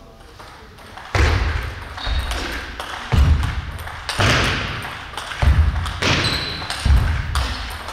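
Table tennis rally: the ball is struck back and forth in a string of about seven sharp knocks roughly a second apart, with heavy thuds from the players' footwork on the wooden sports floor, each echoing in the large hall. Two brief high squeaks come in between.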